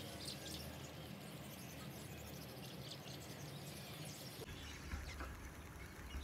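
Faint outdoor background noise coming through a window, with a steady low hum and a few short bird chirps now and then.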